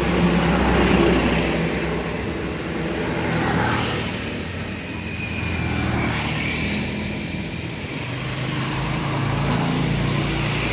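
Motor vehicle engines running, the sound swelling and fading several times as in passing road traffic.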